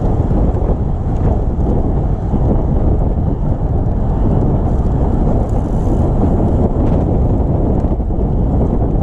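Loud, steady wind rumble buffeting the microphone.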